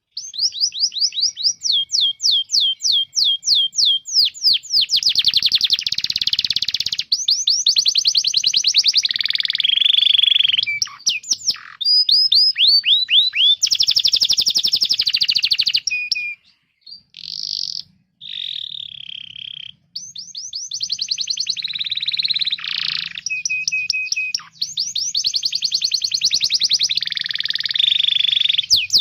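Domestic canary singing long, fast trills of repeated high chirps. The phrases change speed and pitch, with a few short breaks about two-thirds of the way through.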